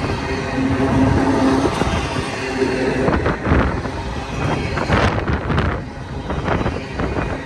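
Empty intermodal well cars of a freight train rolling past: a steady rumble of steel wheels on rail, with several sharp clacks over rail joints in the second half. Wind buffets the microphone.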